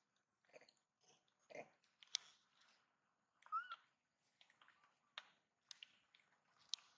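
Pigtail macaques moving and handling things at close range: faint scattered clicks and rustles, with one short squeak that rises and falls about three and a half seconds in.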